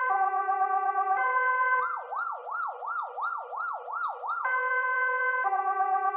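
Swedish police car's electronic siren sounding a high-low two-tone pattern, about a second per tone, switching about two seconds in to a fast yelp of roughly three rising-and-falling sweeps a second, then returning to the two-tone near the end.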